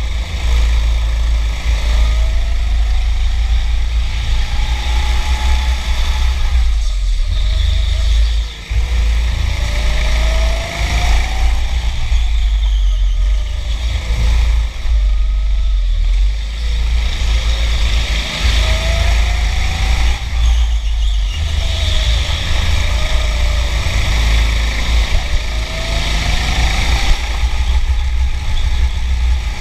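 Racing go-kart's motor heard from on board, its whine rising in pitch again and again as the kart accelerates and falling away between, over a heavy, steady rumble of wind and vibration on the kart-mounted microphone.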